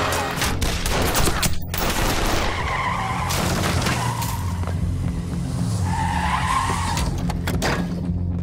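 A car's engine and tyres skidding, with several sharp bangs in among them and a tyre squeal about three seconds in and again about six seconds in.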